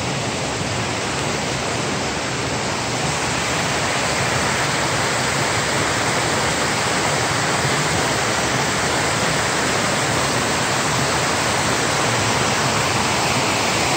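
Rock Brook in flood, rushing steadily as whitewater over debris and a broken stone bridge abutment. The rush grows a little louder after a couple of seconds.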